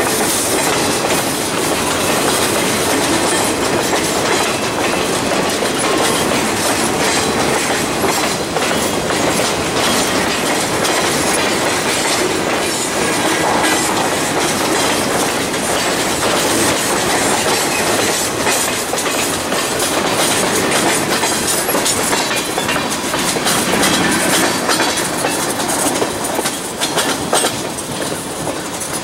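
A Norfolk Southern freight train of boxcars rolling past close by: a steady rumble of steel wheels on the rails, with repeated clicks as the wheels cross rail joints. A few sharper clanks come near the end as the cars go by.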